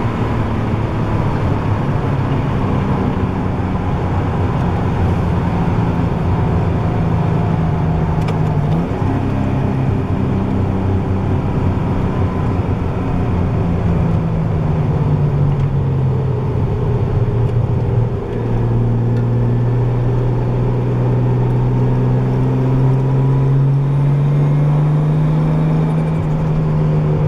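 Nissan RB20DET turbo inline-six idling after a cold start through a gutted muffler with no catalytic converters, a loud, nearly straight-piped exhaust note. About eighteen seconds in the note dips briefly, then slowly climbs. A faint whine rides on top; with the car in neutral and the clutch out, the owner puts it down to the transmission, probably the input shaft.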